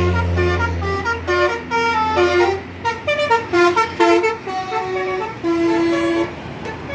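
Tour bus's telolet musical air horn, a Basuri horn, playing a quick melody of short pitched notes that jump up and down. A low engine drone underlies the first second.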